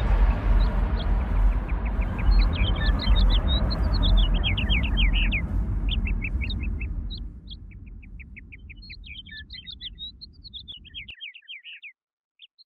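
Small birds chirping in quick trills, over the bass-heavy tail of an electronic music track that fades over the first seven seconds and cuts off about eleven seconds in.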